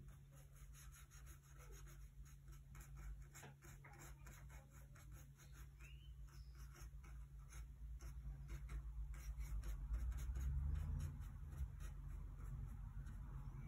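Bristle paintbrush dabbing and scrubbing oil paint onto a gessoed panel: a quick, irregular run of soft scratchy ticks, over a low steady hum that grows louder near the end.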